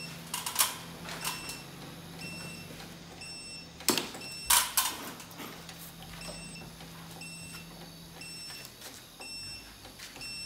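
Growatt SPF5000ES inverter's keypad beeping: short, high beeps about once a second as its buttons are pressed to step the bulk charging voltage setting, with a few sharper clicks in the first half.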